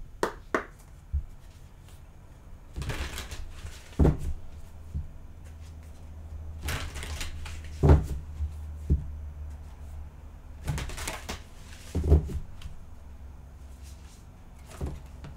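A deck of cards being shuffled by hand in several bouts of rustling, each followed by a dull knock, about every four seconds.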